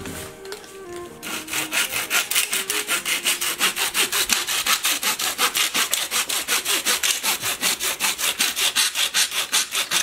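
A hand saw cuts through a bound bundle of dry brushwood stems at a broom's end. The strokes start about a second in and go on fast and even, about six a second.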